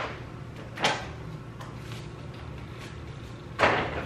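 Two sharp knocks of hard objects being handled, one about a second in and a louder one near the end, over a steady low hum.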